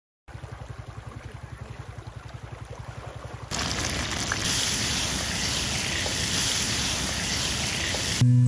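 Hot oil sizzling steadily in a frying pan as okra fries, starting suddenly about three and a half seconds in. Before it there is a low, rapid flutter.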